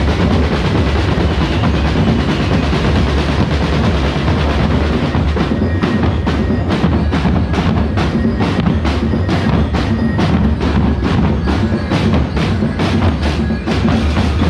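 Festival drum band playing a driving percussion rhythm over a dense, heavy low rumble of drums. About five seconds in, sharp evenly spaced strikes stand out, roughly three a second.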